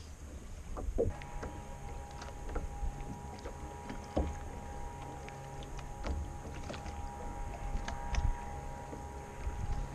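Water lapping against a plastic kayak hull, with scattered light clicks and knocks. A steady hum of two close notes starts about a second in.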